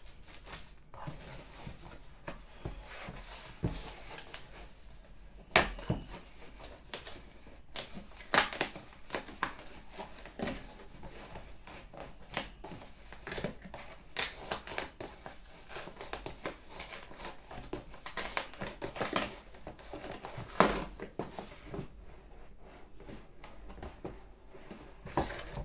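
A shipping package being handled and opened by hand: plastic packaging crinkling and tearing, with irregular sharp crackles and clicks, two louder snaps about six seconds in and about twenty seconds in.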